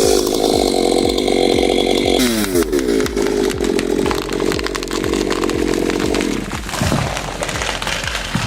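Two-stroke chainsaw running at full throttle. The revs dip and climb again about two seconds in, then fall away about six and a half seconds in.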